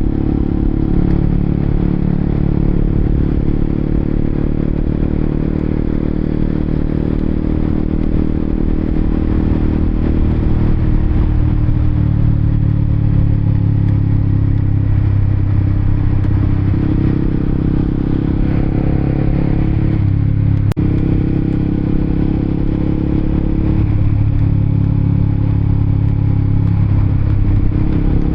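Honda CBR sport bike's engine running on the move, its pitch rising and falling several times as the speed changes. About two-thirds of the way through there is a brief sharp break in the sound.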